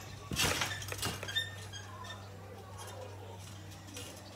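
Trampoline mat and springs taking a landing: two thumps with a metallic spring rattle, about half a second and a second in, as a tumbler comes down from a back tuck and rebounds.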